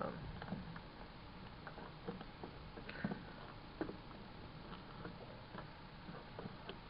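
Faint scattered clicks and light rustling as multimeter test leads and their probes are picked up and handled.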